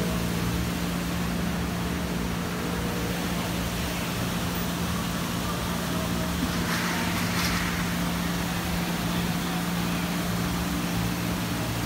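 Steady low mechanical hum over an even wash of outdoor traffic noise, with a brief swell of hiss about seven seconds in.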